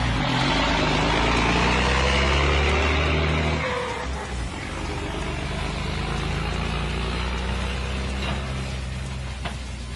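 Heavy truck diesel engine running under load, its pitch rising over the first three and a half seconds. About four seconds in the sound changes abruptly to a steadier, quieter engine drone.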